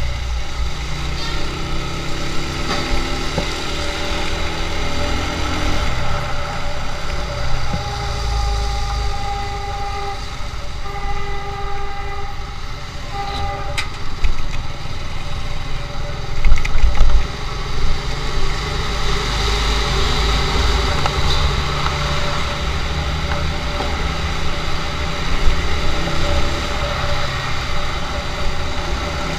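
Motorcycle engine running while riding through city traffic, its pitch rising in steps through the gears in the first few seconds. A vehicle horn sounds several short times about a third of the way through, and loud low buffeting comes through about halfway.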